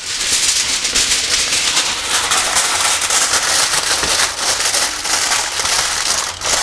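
Aluminium foil crinkling and crackling steadily as hands press and crumple it down over a roasting tray.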